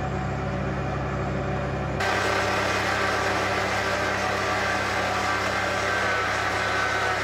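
Four-wheel-drive engine idling steadily. About two seconds in, a steady whine from the Troopy's electric Bushranger winch joins the engine as the winch rope reels in through the fairlead, pulling the bogged Pajero out of the sand.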